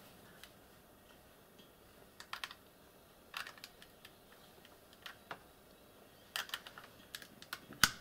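Irregular light plastic clicks and taps as a USB cable plug is handled and pushed into the port of a LogiLink UA0085 USB hub, in small clusters, with the sharpest click near the end.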